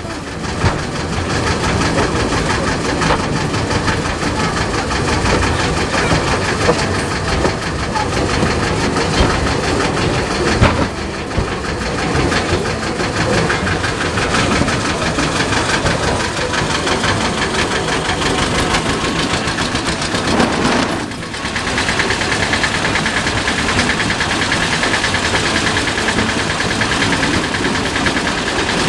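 Engine of a small park train running steadily, heard from its open carriage as it rolls along the narrow-gauge track. It dips briefly about two-thirds of the way through, after which a steady higher whine joins in.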